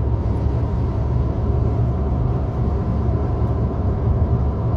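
Road noise inside a moving car's cabin: a steady low rumble of tyres and engine.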